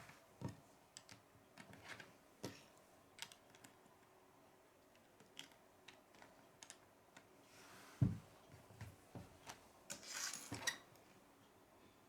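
Plastic Lego pieces clicking and clattering as they are picked up and pressed together, in scattered irregular clicks, with a dull knock about eight seconds in.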